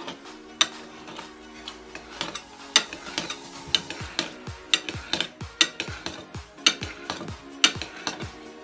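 Table knife clicking and scraping against a ceramic plate as it cuts through a thin pancake, over background music with a steady beat of about one beat a second.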